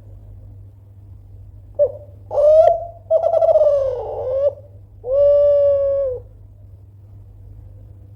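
Derkuku Kelantan spotted dove cooing loudly: one phrase of a short opening note, a brief coo, a longer rolling coo, and a long, steady final coo, starting about two seconds in. A steady low hum runs underneath.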